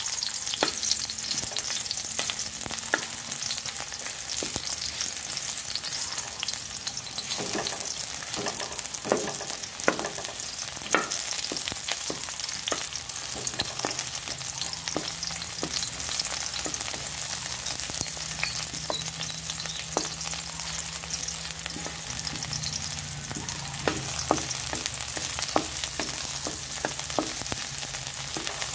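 Chopped red onion sizzling in hot oil in a metal wok, with a steady hiss and frequent sharp ticks as a wooden spatula scrapes and taps against the pan while stirring.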